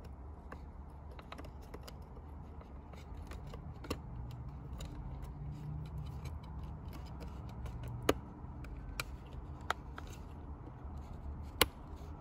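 Plastic wiring connector being handled and pushed into its clip. There is a scatter of small clicks and rattles and a few sharper clicks, the loudest about eight seconds in and again near the end, over a low steady hum.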